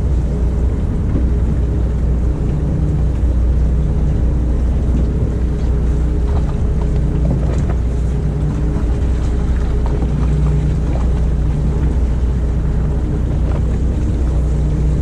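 Fishing boat's engine running, a steady low drone with a hum that swells and fades every second or two.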